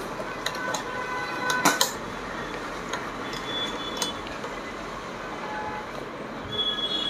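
Small clicks and taps of a plastic oil bottle's nozzle and fingers against the metal parts of an old Pfaff sewing machine's needle-bar mechanism during oiling, with a few short high squeaks; a cluster of sharper clicks comes a little under two seconds in.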